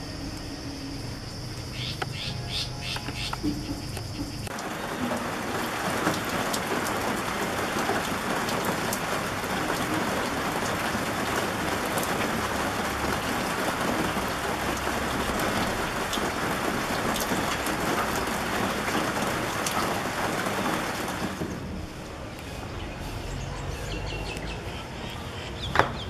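Steady hiss of rain with scattered drop ticks, setting in about four seconds in and easing off about four seconds before the end. A few short, high bird calls come before it.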